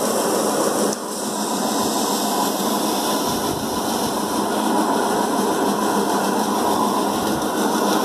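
Paddy thresher's spinning wire-loop drum stripping grain from rice bundles held against it, running with a steady dense mechanical noise. The level drops briefly about a second in, then comes back.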